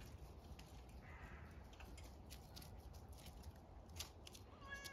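Faint scuffling and a few light clicks as a cat and a puppy play-wrestle on gravel and dry leaves, with a low steady hum underneath. Right at the end the cat starts a meow.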